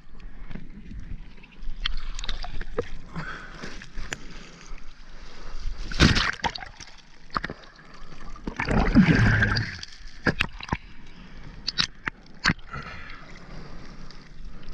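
Seawater sloshing, gurgling and splashing around an action camera as it dips under the surface and comes back out. There are loud splashes about six and nine seconds in.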